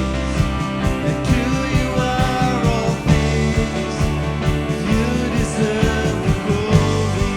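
Worship music from a band: held chords with a steady drum beat, and no clear sung words.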